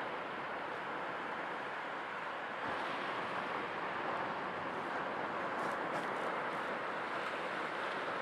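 Sea waves: a steady rush of surf that grows a little louder about three seconds in.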